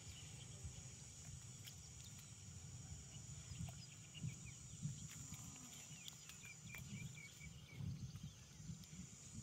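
Quiet rural field ambience: a steady high insect drone and an uneven low rumble, with a short run of bird chirps about two-thirds of the way through.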